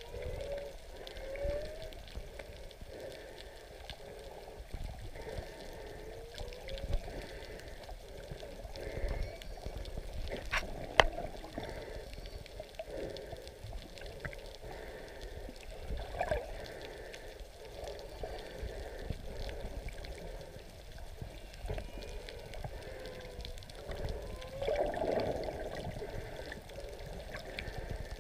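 Humpback whale song heard underwater: a series of moans and upward-sliding calls, some louder ones near the end, over a low watery rumble. A single sharp click sounds about eleven seconds in.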